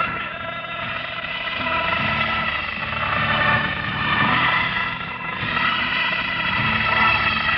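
Military tank engines running, a steady heavy rumble that dips briefly about five seconds in.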